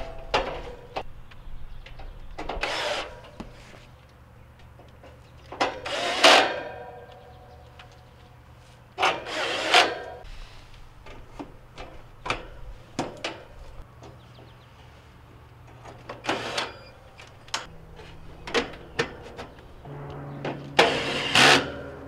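Cordless drill/driver running screws into the sheet-metal panels of a Trane central air conditioner's outdoor condenser in several short bursts, one ending in a brief motor whine. Between them, metal panels clank and click as they are fitted back on.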